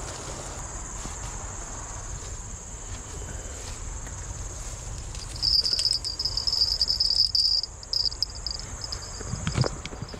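Insects chirring: a steady high-pitched drone throughout, joined about halfway through by a louder, stuttering buzzy trill that stops shortly before the end.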